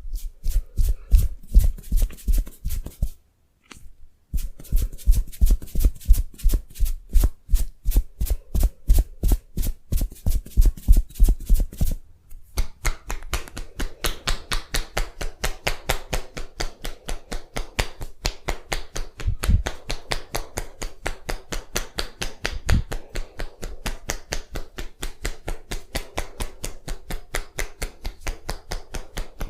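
Percussive massage strokes: hands striking the body in a rapid, even rhythm of about four to five strikes a second. The strikes are heavier at first, with a brief break about three seconds in, then lighter and a little quicker from about twelve seconds in.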